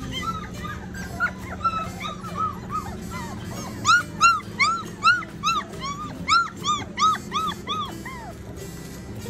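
Four-week-old Standard Bernedoodle puppies yipping and whining in short, high-pitched calls. The calls are softer and scattered at first, then come as a louder run of about three yips a second in the second half.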